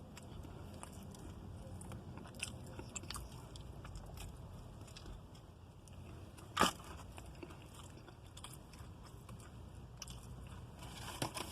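A person chewing and biting fried food, with faint crunches and small clicks, and one sharp, louder click about six and a half seconds in.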